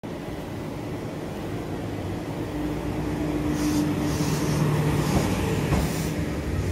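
JR West limited express electric train moving along a station platform: a steady low hum that grows louder, with brief hissing a few seconds in and again near the end.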